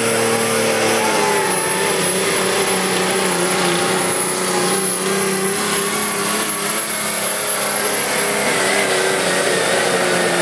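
Turbocharged Cummins inline-six diesel in a Dodge Ram pickup running at full throttle, pulling a sled under heavy load, with a high steady turbo whistle over the engine. The engine note drops about a second in as the truck takes up the load and moves off.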